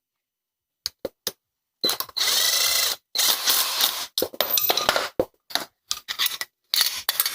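Near silence for about the first second, then a few light clicks, a stretch of metallic scraping with a faint ringing, and a run of clinks and clatters: metal brake parts and hand tools being handled while fitting new rear brake pads to a motorcycle's caliper.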